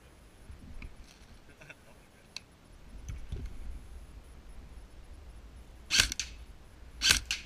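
Two sharp shots from a black toy rifle, about a second apart, after some low handling rustle.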